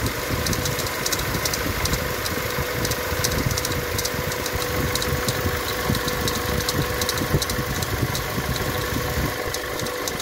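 Toyota Tacoma 2.7 L four-cylinder engine idling, with a steady tone and rapid, irregular light metallic ticking from the engine-bay accessory drive. The noise comes from worn bearings in the idler pulley.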